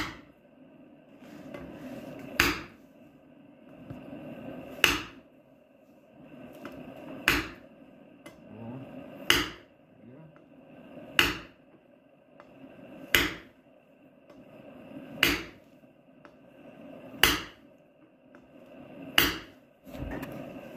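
Blacksmith's hammer striking hot steel on an anvil while forging facets into a coal rake: about ten light single blows, one roughly every two seconds, each with a short metallic ring. A low rushing noise swells between the blows.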